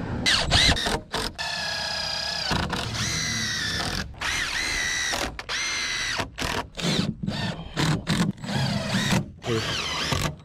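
Cordless drill driving screws into wood framing. Several motor whines each spin up quickly and hold a steady pitch for one to two seconds, followed by shorter, choppier bursts in the second half.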